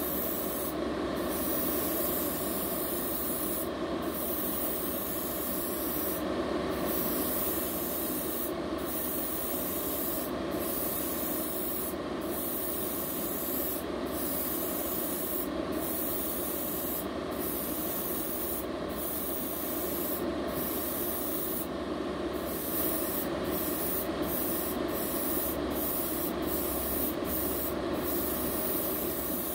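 Steady, even rushing noise of moving air with a faint hum under it.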